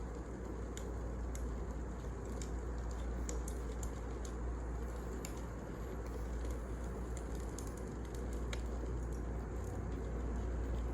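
Wood fire burning, with irregular small crackles and pops over a steady low rumble.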